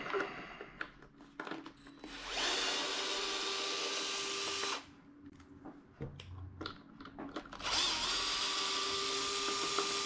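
Cordless power driver spinning, twice for about two and a half seconds each, backing screws out of an RC truck's chassis; each run winds up quickly to a steady whine and stops sharply. Light clicks and handling between the runs.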